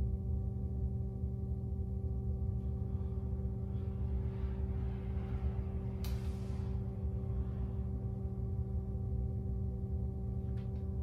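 A steady low hum with several overtones held at constant pitch. About six seconds in, a brief hiss swells up and fades.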